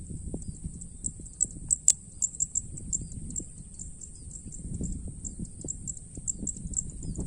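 High-pitched insect trilling, continuous with quick rapid pulses, over an irregular low rumble, with one sharp click about two seconds in.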